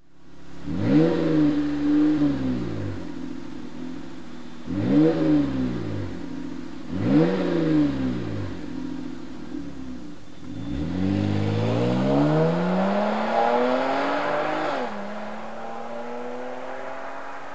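2015 Jeep Cherokee's 3.2 L V6 running through a Flowmaster Force II axle-back exhaust with an 80 Series muffler: three quick free revs at standstill, then it accelerates away with the note rising, shifts up late on with a sudden drop in pitch, and settles into a steadier, fading cruise.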